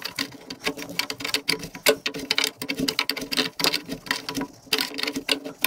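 Spanner working a seized brake pipe union nut loose on a classic Mini's rear subframe: rapid, irregular metallic clicking and ticking.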